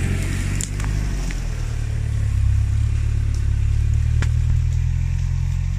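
Off-road 4x4's engine running steadily as the vehicle is manoeuvred, a low drone that swells slightly about two seconds in. A couple of sharp clicks sound over it.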